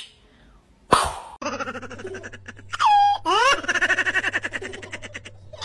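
An orange tabby cat yowling in long, wavering calls that glide up and down in pitch, over a steady low hum. A short sharp sound comes about a second in, before the calls.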